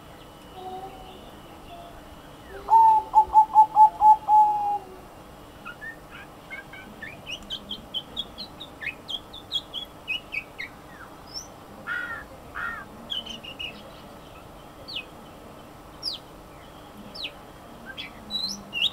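A zebra dove coos a fast staccato run of about eight low notes a few seconds in, preceded by a faint single coo. Through the rest, other small birds give short, high, falling chirps.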